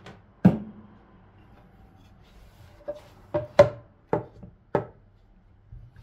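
Wooden kitchenware handled on a countertop. One heavy thump about half a second in, then five sharp wooden knocks over about two seconds in the second half.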